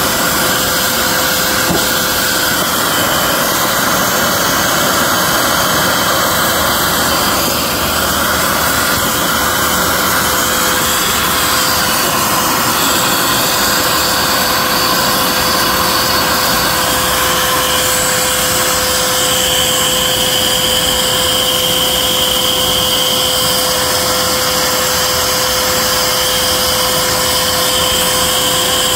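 Vacuum cleaner running steadily, sucking gunk out of a car body's rain-well drain holes through a narrow hose nozzle. A constant hum runs under the suction noise, and high whistles come and go as the nozzle is moved about the holes.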